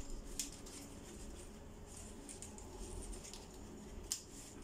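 Faint rustling and small clicks from hands working among a Guzmania bromeliad's leaves while cutting out its spent flower stalk at the base, with a sharper click about four seconds in.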